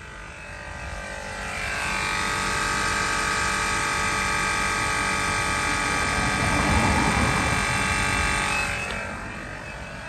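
Land Rover LR3 air suspension (EAS) compressor running with a steady whine and a rattle, getting louder over the first two seconds and fading near the end. It sounds unhealthy: its piston chamber is loose, so it is not building compression efficiently.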